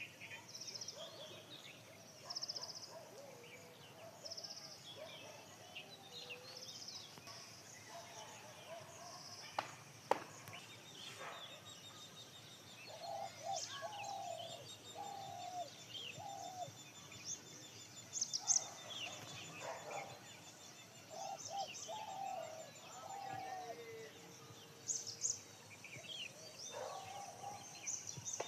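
Several wild birds chirping and calling outdoors: high twittering and trills throughout, with bursts of lower repeated calls in the second half.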